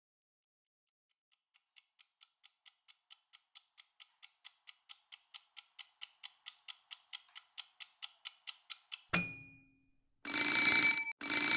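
Countdown-timer clock ticking about four times a second, growing steadily louder, ending in a single sharp ding as the timer reaches zero. An alarm bell then starts ringing in loud bursts about a second long.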